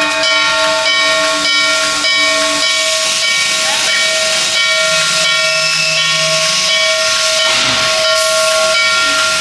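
A Norfolk & Western steam locomotive's whistle blowing one long, loud, steady blast, several notes sounding together over a hiss of steam. The lowest note drops out about two and a half seconds in, and the whistle cuts off right at the end.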